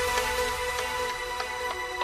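Background music: sustained synth tones with soft notes plucked at an even pace.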